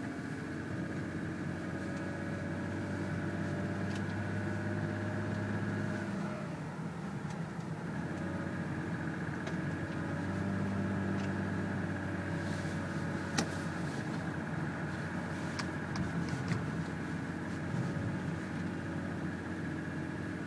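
2007 Lexus ES350's 3.5-litre V6 running under way soon after a cold start, with the owner's 'very noticeable' piston slap knocking under the engine note. The engine note falls about six seconds in and rises again around ten seconds in, with a sharp click about two-thirds of the way through.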